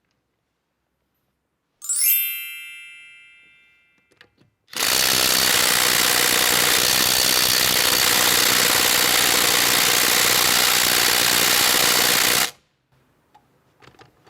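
A metallic clink about two seconds in, ringing briefly. Then a Parkside Performance brushless impact driver set to its maximum 226 Nm hammers steadily for about eight seconds through a 17 mm impact socket on a car wheel bolt before stopping; the bolt does not come loose.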